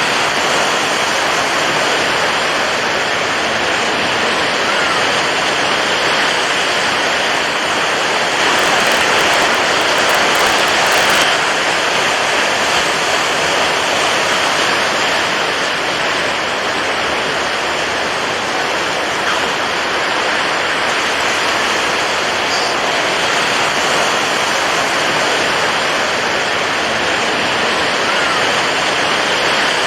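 Water waves making a steady, even rush of water noise, swelling slightly about nine seconds in.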